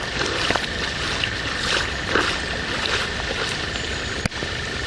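Steady rushing of canal floodwater overflowing and running across a path, with a single sharp click about four seconds in.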